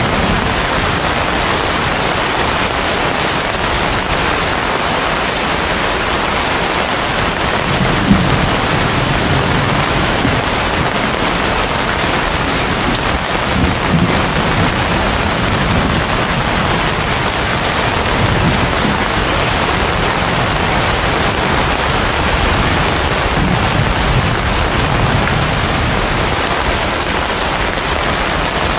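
Heavy rain falling steadily on broad banana and palm leaves, a dense even hiss. A few low rumbles rise out of it, the most noticeable about eight and fourteen seconds in.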